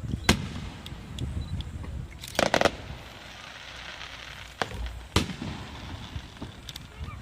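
Fireworks shells bursting overhead: a sharp bang about a third of a second in, a quick cluster of bangs around two and a half seconds, a crackling hiss, then two more bangs near five seconds.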